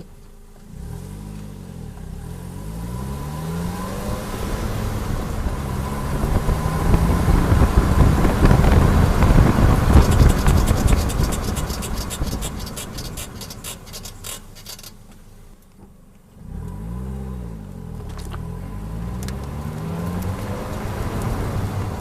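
Suzuki SX4 pulling away, then a rhythmic scraping tick from the rear driver's-side brake that slows and spreads out as the car slows to a stop, about ten seconds in. It pulls away again a little after the stop. The mechanics have found no fault behind the noise.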